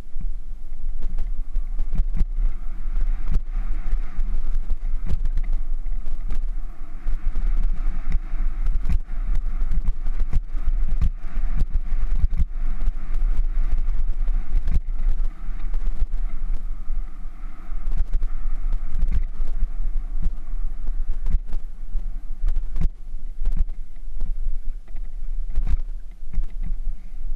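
Bicycle rolling over a rough dirt and gravel trail: a steady low rumble with frequent irregular knocks and rattles as the wheels hit stones and bumps, over a hiss of tyres on grit.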